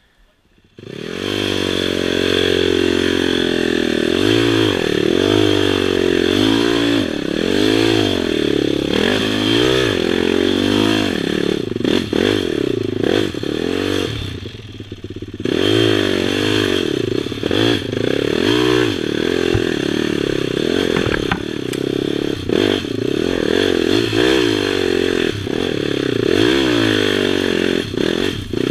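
Sport quad's engine revving up and down over and over, with clattering and scraping from the machine over rough ground as it climbs a steep, rutted dirt trail. The engine sound cuts in suddenly about a second in and eases off briefly around the middle.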